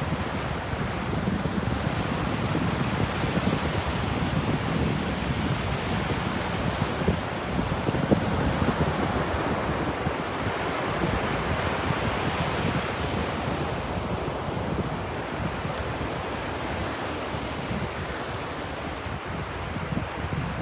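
Ocean waves breaking and washing on a beach, a continuous rushing surf that swells and eases slowly, with wind noise mixed in.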